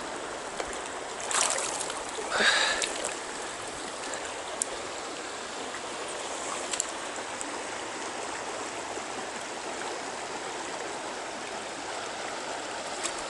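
Steady rush of flowing stream water, with two brief louder sounds about a second and two and a half seconds in.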